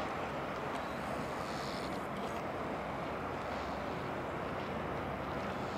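A boat's engine running steadily with water rushing along the hull, heard from on board; a low, even hum under a constant wash.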